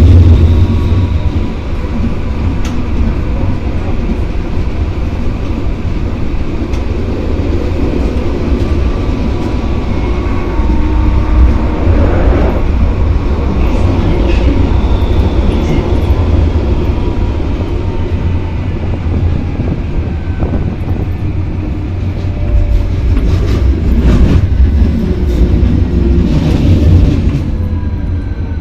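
Electric tram-train running along the railway, heard from inside the cab: a steady rumble of wheels on rail, with the traction motors' faint whine drifting slowly in pitch and scattered clicks and knocks over the track.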